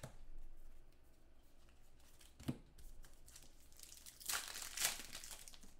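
A trading-card pack wrapper being handled and torn open, crinkling loudest about four seconds in, with a soft knock about halfway.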